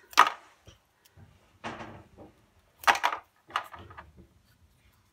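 Small scissors snipping through paper drinking straws: a few sharp cuts, the loudest near the start and about three seconds in, with quiet handling of the straws between them.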